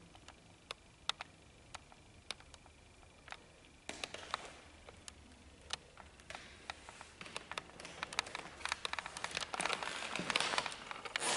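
Footsteps on a hard gallery floor, about two steps a second, with rustling and shuffling in between and growing busier near the end.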